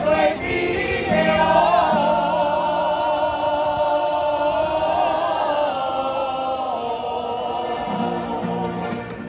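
A street group of singers with guitars and an accordion performing together; the voices hold one long wavering note through the middle, over steady accordion chords early on and again near the end.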